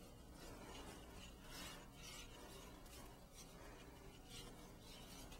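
Faint, repeated soft swishes of wet hands rubbing over a freshly applied plaster below-elbow cast, smoothing its surface.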